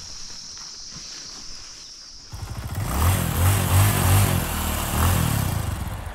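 Insects trilling steadily in a high band, then a little over two seconds in a much louder rumbling sound with a pulsing low throb cuts in and drowns them out.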